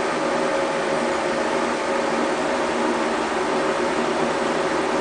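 Steady mechanical hum with an even hiss and a faint constant tone, as from a fan or small motor running.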